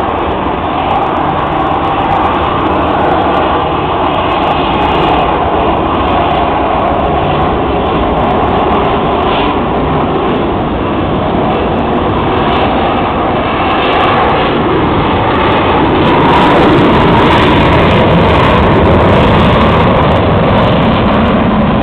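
F-22 Raptor fighter jet's twin Pratt & Whitney F119 afterburning turbofans, heard as a loud, steady jet rush as the aircraft flies a display overhead. It grows a little louder about three-quarters of the way through.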